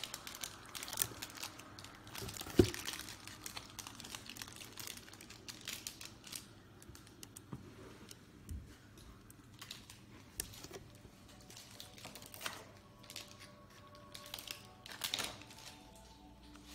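Scattered light clicks and taps with one sharper knock about two and a half seconds in, as the phone and the snack packaging are handled and carried. Faint steady tones come in near the end.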